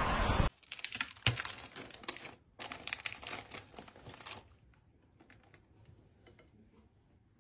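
Half a second of loud crowd voices and motor noise that cuts off suddenly, then about four seconds of quick, dry clicks and crinkling as sandwich makings (bread, salami slices from their plastic pack, cheese) are handled on a plate. It ends with faint, scattered handling sounds.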